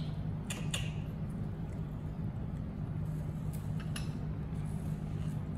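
A few light clinks and clicks of small ceramic plates being handled, over a steady low hum.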